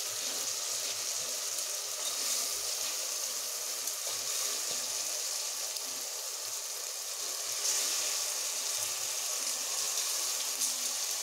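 Vegetables and spice masala sizzling in oil in an aluminium pressure cooker, a steady high hiss; the vegetables are cooked down with the oil risen to the top.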